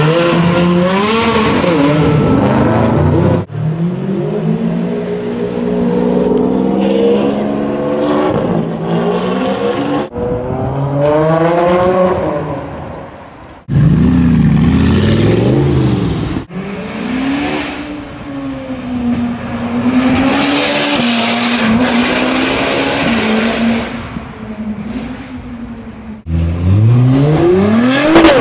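A run of short clips of supercar and sports car engines revving and accelerating, their pitch climbing and falling with each throttle blip and cutting abruptly from one car to the next. Near the end a Nissan GT-R accelerates hard, its engine note rising steeply.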